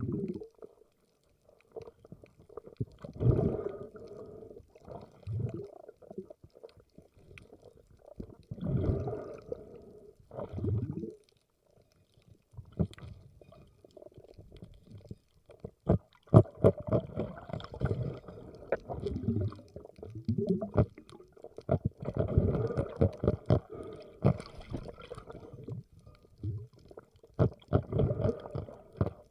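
Muffled sloshing and gurgling of water around the camera, coming in irregular bursts with scattered sharp clicks, busiest in the second half.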